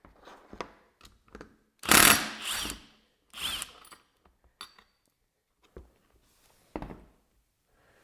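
A cordless drill-driver runs in two short bursts, about two and three and a half seconds in, backing out the bolts that hold the wiper's mounting bracket. Light clicks and knocks of handling come around them.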